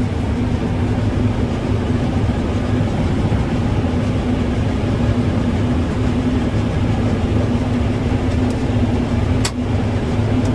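Combine harvester running steadily while cutting barley, a constant low engine and machinery drone with one brief click about nine and a half seconds in.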